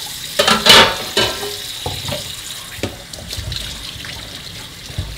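Wooden spoon stirring chopped herbs in hot water in a clay pot, the water sloshing, with a louder watery burst about half a second in and small knocks of the spoon after it.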